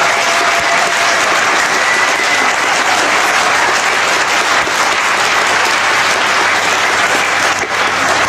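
Audience applauding, a dense, steady clapping that dips briefly near the end.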